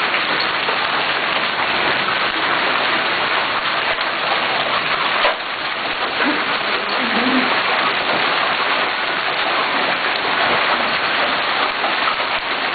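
Heavy hailstorm: hail and rain pelting down in a dense, steady hiss of impacts on the ground, cars and roofs, dipping slightly in loudness about five seconds in.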